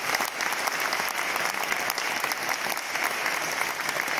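Audience applauding steadily, many hands clapping densely.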